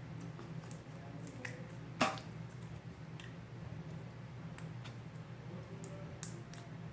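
Sticky slime being squeezed and stretched by hand, giving faint scattered wet clicks, with a sharper pop about two seconds in and another near the end.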